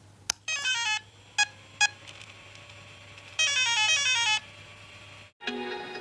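Electronic intro sound effect: a sharp click, then a quick falling run of beeps, two more clicks, and a second falling run of beeps about three and a half seconds in, over a low steady hum. Music starts near the end.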